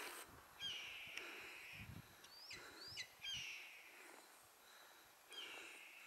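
Acorn woodpeckers calling faintly: three drawn-out calls, each opening with a quick upward sweep, with two short rising notes in between.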